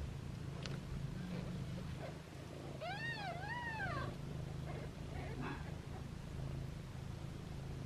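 A newborn kitten gives one high mew about three seconds in, its pitch rising and falling twice, over a low steady hum.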